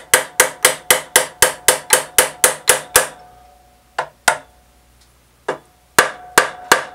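Plastic mallet tapping on a metal drill press table, about four quick blows a second for three seconds, then a few scattered taps, each leaving a faint ring. The taps nudge the tilted table toward square with the spindle while tramming it.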